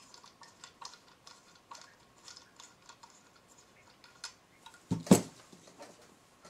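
Small clicks and light metal rattles as trim-router accessory pieces are handled and fitted onto the router's clear plunge base, then a heavier knock about five seconds in as the base is set down on the table.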